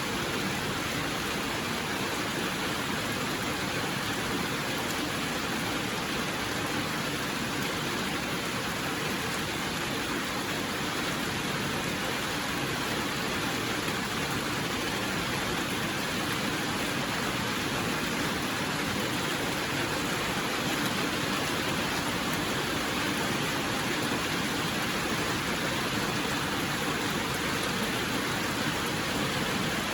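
Steady, even rain with no distinct drops or changes.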